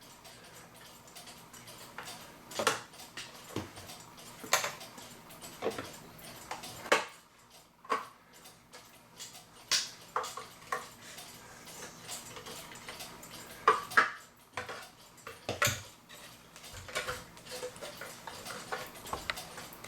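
Irregular clicks, taps and light scrapes of a small screwdriver working the plastic retaining tabs on a clock's plastic case, with a couple of sharper clicks about two-thirds of the way through as the tabs give.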